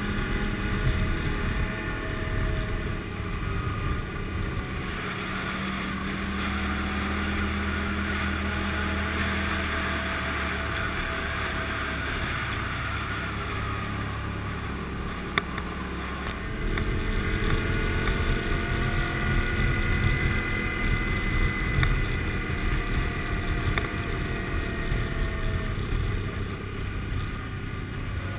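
Motorcycle engine running at a steady road speed, heard on board with wind rushing over the microphone. A single sharp click comes about fifteen seconds in, and the engine note shifts and grows a little louder shortly after.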